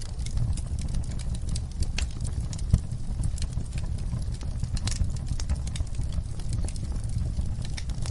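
Wood fire burning in a fireplace: a steady low rumble of the flames with irregular sharp crackles and pops from the burning logs, one louder pop about three seconds in.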